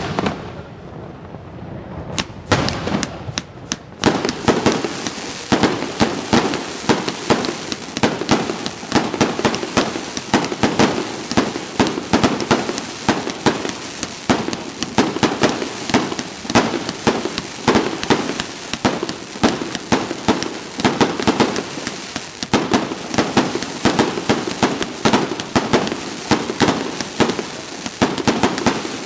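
Aerial fireworks display: shells bursting with sharp cracks and bangs. A few scattered reports come first, then from about four seconds in a dense barrage of rapid cracks and bangs, several a second.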